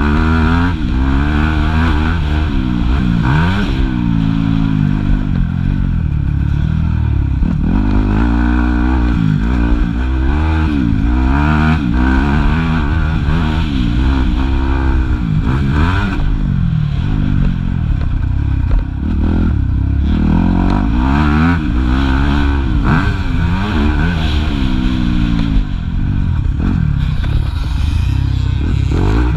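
Yamaha YZ250F motocross bike's four-stroke single-cylinder engine revving hard, its pitch climbing and dropping again and again as the throttle is opened and closed.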